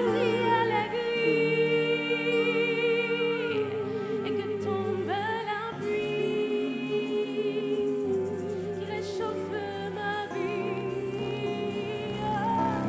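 A young woman singing a slow French love ballad live into a microphone, holding long notes with a wide vibrato. Under her voice are low held chords that change every couple of seconds.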